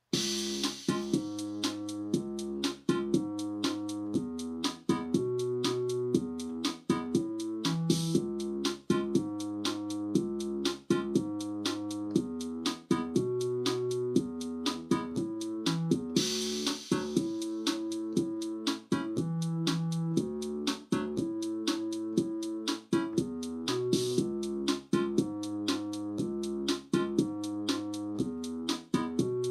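Suzuki Omnichord OM-108 playing a run of held chords that change every second or two over a steady electronic drum beat. A bright high shimmer sweeps in at the start and again about halfway through.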